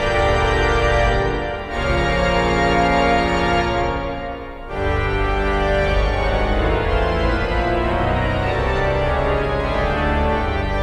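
Four-manual, 81-rank Quimby cathedral pipe organ playing loud sustained chords over deep pedal bass. A new chord strikes in about two seconds in and again near the middle, and then the full sound holds steady.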